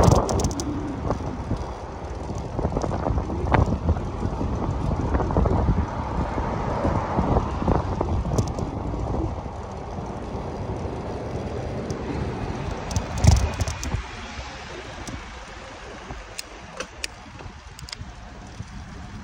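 Wind on the microphone and road rumble while riding a bicycle along a street, with scattered rattles and clicks and one louder knock a little past the middle. The noise drops off in the last few seconds.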